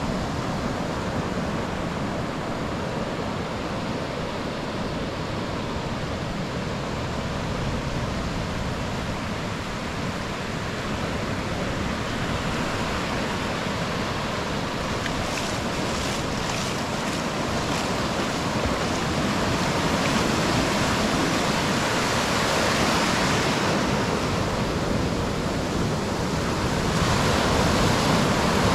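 Ocean surf breaking and washing up a sandy beach, a steady rush of water that swells louder in the second half as waves break close by.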